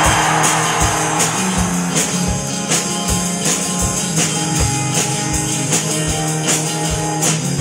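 Instrumental rock band playing: a distorted electric guitar strumming chords over a Peavey drum kit keeping a steady beat with cymbal hits.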